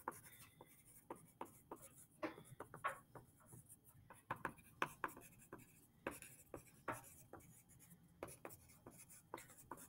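Handwriting on paper: faint, short, irregular strokes and taps of the writing tip, a few every second.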